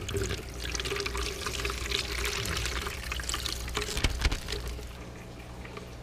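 Water poured from a plastic fish bag through an aquarium net into a plastic bucket, splashing and trickling, with a sharp tap about four seconds in. It eases off about five seconds in.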